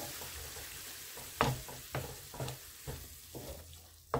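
Wooden spatula stirring carrots and onions in a frying pan: a series of sharp scrapes and taps against the pan, about two a second, over a sizzle that dies down after a splash of water has gone in.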